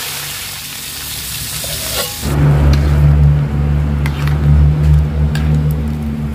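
Taro stems sizzling as they fry in an aluminium wok. About two seconds in, the sound cuts to a steady low hum with a few light clicks of a metal ladle stirring the soupy curry in the pan.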